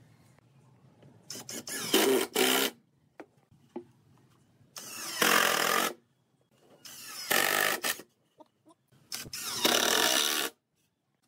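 A red 21 V cordless impact driver drives screws into pine boards in four bursts of about a second each. Each burst starts softer and then turns louder partway through as the screw bites and seats.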